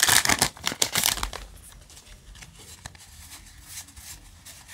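Foil Yu-Gi-Oh! booster pack crinkling and tearing as it is pulled open, loud for about the first second and a half, then only faint rustles and ticks as the cards are handled.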